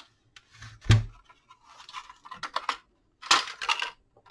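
Hard plastic clicks and knocks from a Ryobi P117 charger's housing being handled on a bench as its top shell is pulled off the base: a single knock about a second in, then a quick cluster of clicks and a louder rattling burst near the end.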